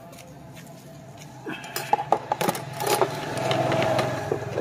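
Kitchen items being handled and set down: a scatter of knocks and clicks starting about a second and a half in, over a steady low hum.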